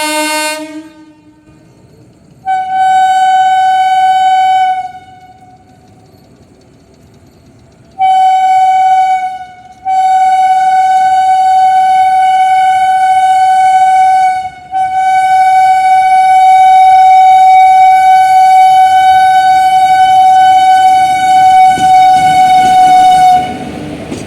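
Indian Railways WAP-4 electric locomotive's horn sounding shrill, high blasts: a lower note dies away at the start, then come a blast of about two seconds, a short one, and two long ones, the last held for about nine seconds before it cuts off. Train running noise lies beneath.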